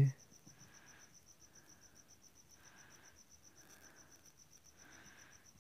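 A cricket chirping faintly in the background, a high, steady, evenly pulsed trill of about five pulses a second.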